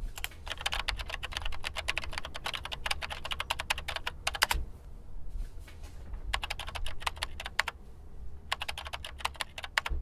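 Typing on a computer keyboard: a long run of rapid keystrokes, a pause of about two seconds, then two shorter runs of keystrokes near the end.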